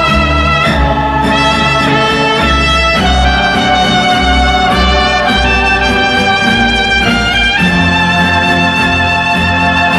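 Background music: sustained brass melody, trumpet-like, over strings and a steady bass line.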